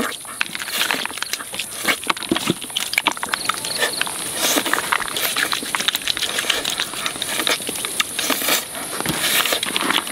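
Close-up squelching and smacking of bare hands rubbing chili paste into boiled whole chicken, a dense, irregular run of sticky clicks and crackles.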